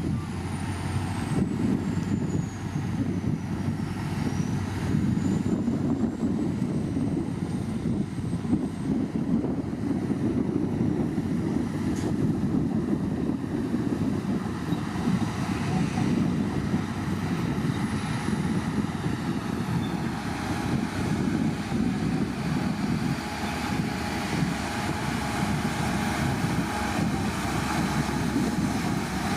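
Shantui bulldozer's diesel engine running steadily under load, a dense low rumble that holds without a break.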